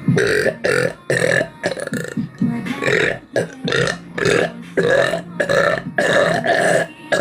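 A woman burping deliberately in a long run of short burps, about two a second.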